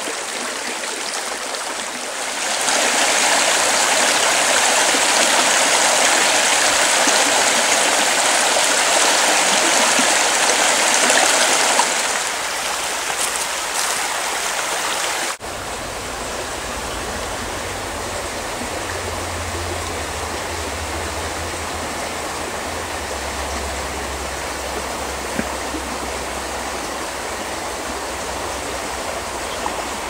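Alpine mountain creek rushing steadily. The rush is louder for several seconds early on, then eases. After an abrupt change about halfway through, it goes on quieter and steadier, with a low rumble underneath.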